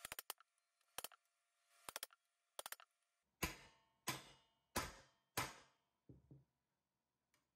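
Ball-peen hammer striking the plunger of a C-frame dimpling tool to dimple a rivet hole in an aluminium aircraft skin: four sharp metallic blows about two-thirds of a second apart, then two lighter knocks. A few light clicks come before the blows.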